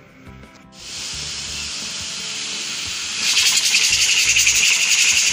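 Aluminium pressure cooker's weighted whistle valve venting steam. A hiss starts about a second in and becomes a much louder, fast-pulsing whistle about three seconds in: the cooker has come up to pressure and is giving one of its whistles.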